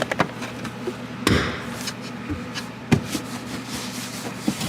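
A few sharp knocks and clicks of hand tools and parts being worked during reassembly, over a steady low hum.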